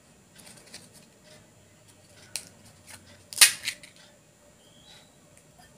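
Crisp fried puri shell cracked open with the fingers for panipuri: a few faint crackles, a sharp crack about two and a half seconds in, then a loud brittle crunch about a second later.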